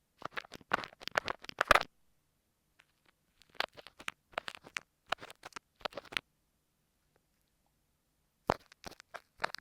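Kinetic sand slime squished and crackling right against an earphone microphone, in three bursts of quick sticky clicks with short silences between them.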